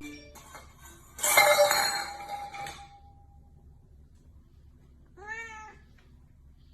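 A single short cat meow, rising and then falling in pitch, about five seconds in. It is preceded, about a second in, by a louder clattering noise with a brief ringing tone that lasts a second or so.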